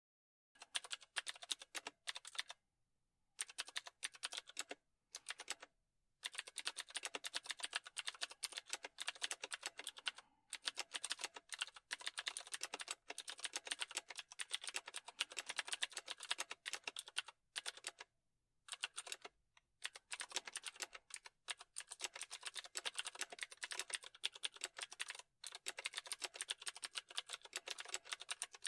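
Computer keyboard typing in rapid runs of keystrokes, broken by brief pauses.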